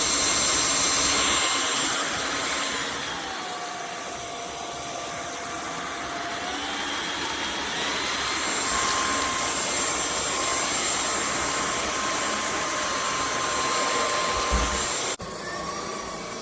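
Cordless stick vacuum cleaner running with a steady motor whine and airflow. Partway through, the tone drops slightly in pitch and volume and then comes back up as the airflow changes. It stops abruptly near the end.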